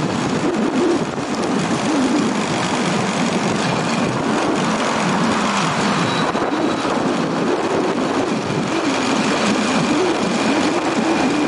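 Small motorbike engine running steadily while riding through town, its hum wavering slightly in pitch, over constant road and wind noise.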